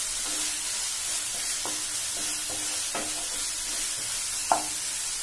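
Tomato, pea and capsicum masala sizzling steadily in a non-stick frying pan over high flame while a wooden spatula stirs it. The spatula scrapes and knocks against the pan a few times, loudest near the end.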